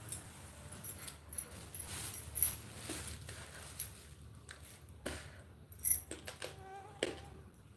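Bangles clinking on a moving wrist, a few sharp jingles over soft cloth rustling.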